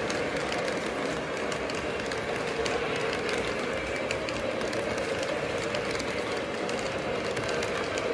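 O-scale model passenger cars rolling past on track: a steady rumble of wheels with many quick light clicks.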